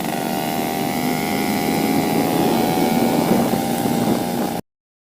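Yamaha RX King 135 single-cylinder two-stroke engine running steadily on the move, tuned rich, with wind and road rush over it. The sound cuts off suddenly about four and a half seconds in.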